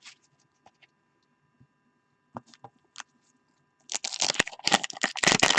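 A few light clicks of cards being handled, then from about four seconds in a dense crinkling and tearing of a wax-paper trading card pack wrapper being ripped open.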